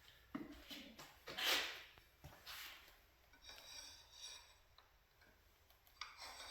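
Quiet handling of steel parts while they are oiled: a few light knocks and faint metallic clinks, with short hissing bursts, the loudest about a second and a half in.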